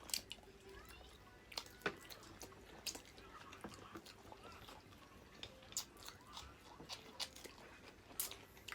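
Chewing and eating sounds from a seafood meal, with scattered short, sharp clicks and cracks.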